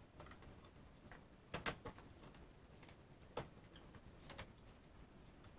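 Painter's tape being handled and pressed down over the top of the window glass: a few short crackles and clicks, the loudest a cluster about a second and a half in, with single ones near the middle and later.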